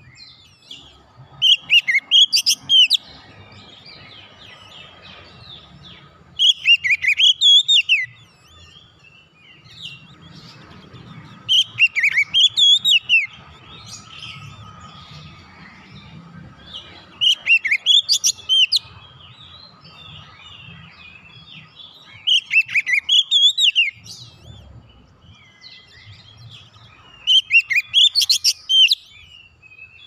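Oriental magpie-robin (kacer) singing: six loud, whistled and warbled phrases of about a second and a half each, roughly every five seconds, with softer twittering between them.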